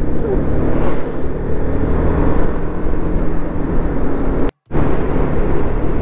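Motorcycle engine running steadily while riding, under wind noise. The sound cuts out completely for a moment about four and a half seconds in.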